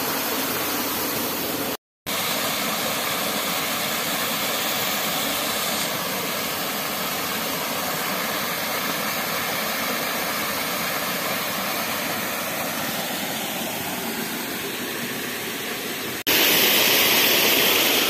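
Waterfall on a creek, a continuous even rush of falling water. It cuts out for a moment about two seconds in and comes back louder and brighter near the end.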